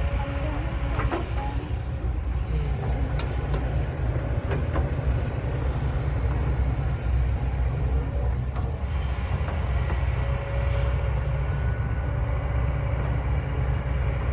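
Kobelco SK200 hydraulic excavator's diesel engine running steadily under load as the machine digs and swings, with a few faint knocks in the first five seconds.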